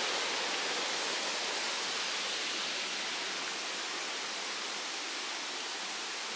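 Waterfall rushing steadily, a constant roar of falling water that slowly gets a little quieter.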